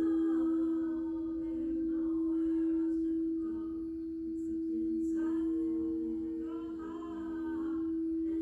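Singing bowl ringing with one steady sustained tone, while higher wavering pitched tones, like a wordless voice, rise and fall over it three times.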